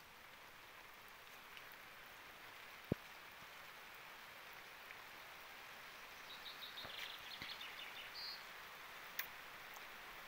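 Steady light rain hiss, with a small bird chirping in a quick run of short high notes about six to eight seconds in. A single sharp click about three seconds in is the loudest sound, with a fainter click near the end.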